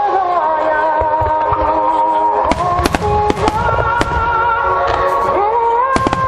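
Fireworks display set to music: a melody of long held notes plays throughout, and from about two and a half seconds in, sharp firework bangs crack over it, several in quick succession.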